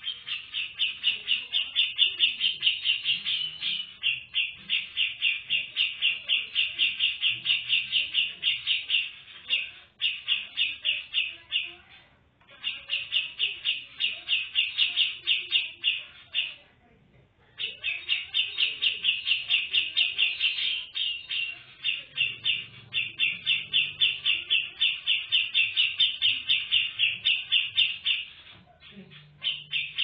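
Female cucak jenggot (grey-cheeked bulbul) calling: long runs of rapid repeated chattering notes, about four a second, in phrases of several seconds with short pauses between them.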